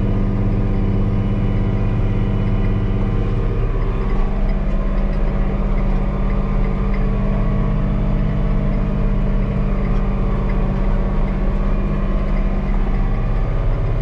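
Case IH 290 tractor engine running steadily under load while pulling a harrow, heard from inside the cab as a kind-of-loud, even low drone.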